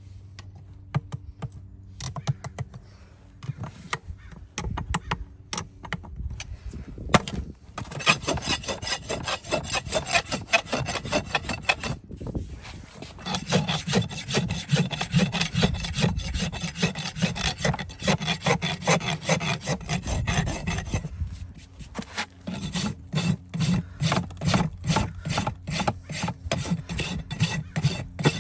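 Hand filing: a file or rasp worked back and forth in rapid scraping strokes. For the first several seconds there are only scattered light clicks; then steady rasping begins, breaks off briefly twice and goes on again.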